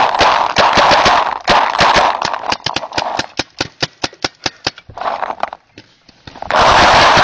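Rapid paintball fire at close range: dense volleys of sharp cracks, then a steady string of about five shots a second that grows fainter, and another dense volley near the end.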